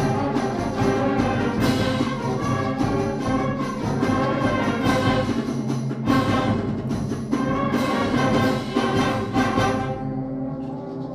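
Student concert band playing a full passage, woodwinds and brass together with regular accented hits. The sound thins out and gets softer about ten seconds in.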